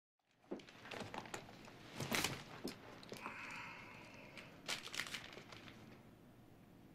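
Paper envelopes and letters being handled: faint rustling and crinkling with a few sharper crackles, busiest about two seconds in and again near five seconds.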